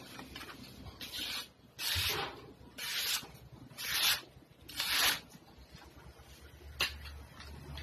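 Itak (bolo knife) blade slicing through a sheet of paper held in the hand: five short rasping strokes about a second apart, a test of the edge's sharpness. A single sharp click follows near the end.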